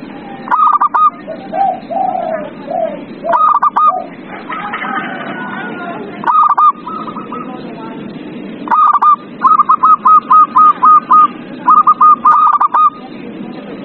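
Zebra dove (perkutut) singing: several phrases of short, clear, hooked coo notes, repeated every few seconds, with a quick run of about seven notes in the second half. A few lower, softer coos come early on, over a steady low background noise.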